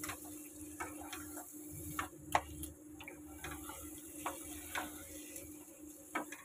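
A spatula stirring a thick taro-leaf and prawn mash in a nonstick frying pan, making irregular clicks and scrapes against the pan, the sharpest about two and a half seconds in. A steady low hum runs underneath.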